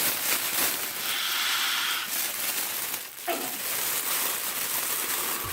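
Airy hiss of a person breathing vapor from a Volcano vaporizer bag, with a brief throaty sound about three seconds in.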